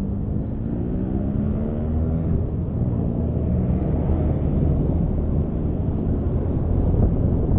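Honda Scoopy scooter's engine running on the move, its pitch rising over the first couple of seconds as it accelerates, then holding steady over a low road and wind rumble.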